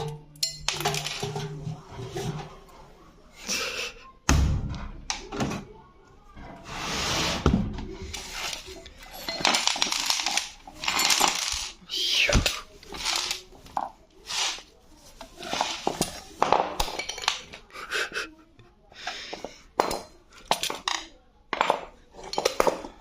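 Irregular clanking and clattering of metal and loose hard parts, many separate knocks and clinks with no steady rhythm.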